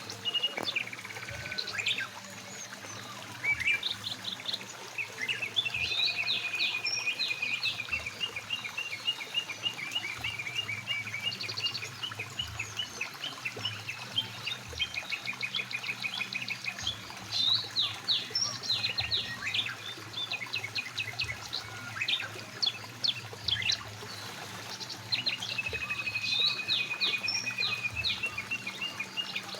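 Several birds calling and singing, with rapid repeated trills and sharp chirps, over the faint rush of a flowing mountain stream.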